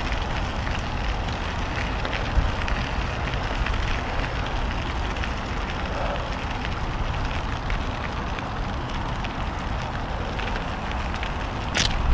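Electric mountain bike tyres rolling and crunching over a gravel path, with wind rumbling on the microphone; a short sharp tick near the end.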